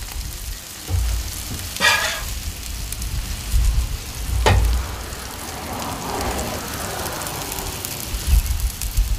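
Burger patties, buns and potatoes sizzling on a hot flat-top griddle, a steady frying hiss with low rumbles coming and going. A short scrape about two seconds in and a sharp clack about four and a half seconds in.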